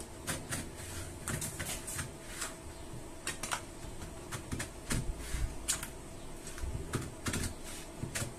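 Large tailor's shears cutting through a paper blouse pattern along a curved seam line: a run of irregular, crisp snips, several a second.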